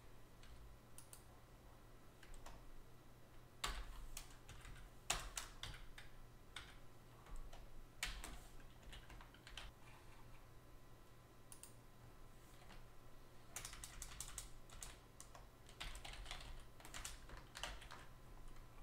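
Faint typing on a computer keyboard: short runs of keystrokes with pauses between them, over a low steady hum.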